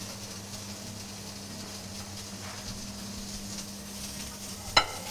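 Venison loin and a slice of bread searing in oil on a very hot flat-top griddle, a steady light sizzle. A single sharp knock near the end.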